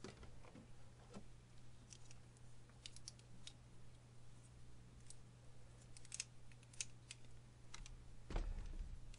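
Small plastic Lego bricks clicking faintly as they are handled and pressed together: scattered light clicks throughout over a faint steady hum, with a brief low bump near the end.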